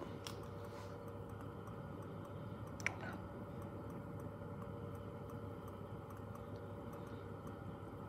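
Bunsen burner flame hissing steadily under a beaker of water at the boil, with faint, rapid, even ticking throughout and one sharp click about three seconds in.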